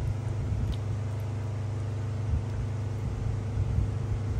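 Steady low mechanical hum, a constant deep drone with a few steady overtones, like a motor or fan running.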